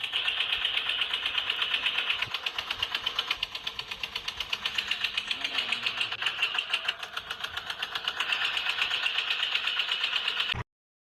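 A small motor running steadily with a fast, even ticking pulse, typical of a toy vehicle's geared electric motor; it cuts off suddenly near the end.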